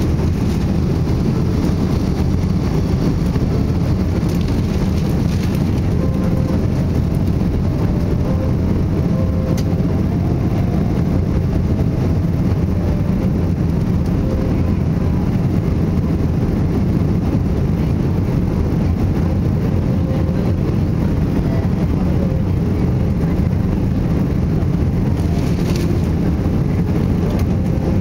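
Boeing 777-200 jet engines running at high thrust: a steady, loud, low rumble that does not change.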